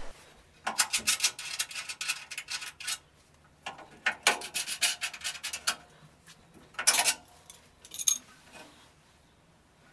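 Ratchet wrench clicking in two quick runs at the radiator's mounting bolts, then two short scrapes.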